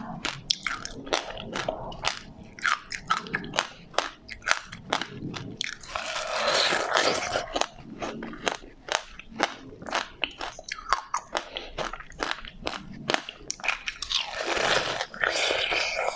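Close-miked eating: wet mouth smacks and crunchy chewing of a soft bun topped with passion fruit pulp and seeds. Two longer, louder stretches of biting come about six seconds in and near the end.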